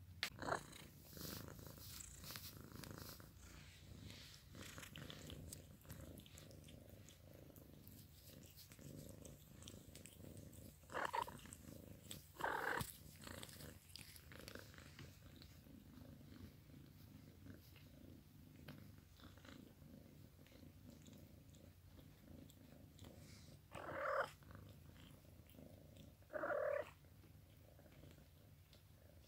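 A cat purring steadily and faintly, with four short kitten mews in two pairs, one pair a little before the middle and the other near the end.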